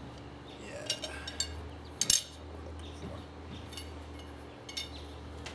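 Steel frame tubes of an Ikea Breim wardrobe clinking and knocking together as they are handled and fitted. There are a few sharp metallic clinks, the loudest just after two seconds in.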